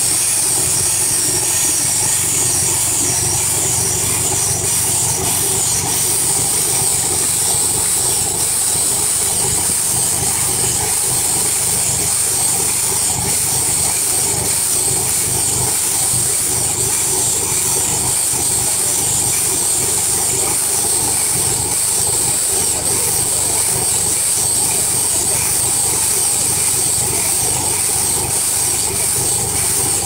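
Combine harvester and tracked round baler running together in the field, a steady engine hum with a high hiss over it.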